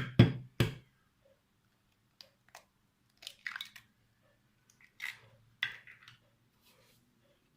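Eggs being cracked into a bowl: a few sharp taps of shell at the start, then soft, scattered crackling as the shells are broken open.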